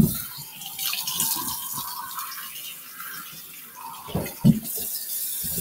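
Kitchen sink tap running with water splashing while someone bent over the sink rinses ground cinnamon out of his mouth. There is a sharp knock at the start and two loud sudden sounds about four seconds in.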